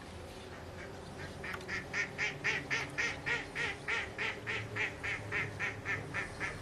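A waterbird calling in a rapid, even series of about twenty short, harsh quack-like notes, about four a second, starting about a second in.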